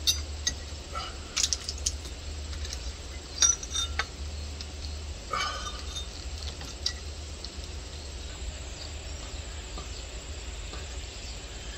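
Scattered light clinks and taps of metal and glass as an old outdoor light fixture is unscrewed and taken down, mostly in the first half. Behind them is a steady low rumble and faint chirping crickets.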